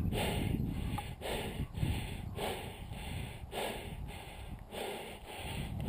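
A player breathing hard close to a head-mounted microphone, in and out about once a second in an even rhythm, over a low rumble of wind and movement on the microphone.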